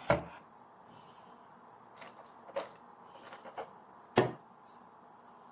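Scattered knocks and clicks of a vacuum cleaner being handled while it fails to start, with no motor running. There are about six separate knocks, the loudest about four seconds in.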